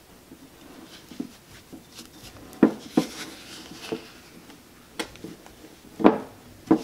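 Silicone spatula stirring flour into chocolate batter in a glass mixing bowl: soft scraping with several irregular knocks of the spatula against the glass.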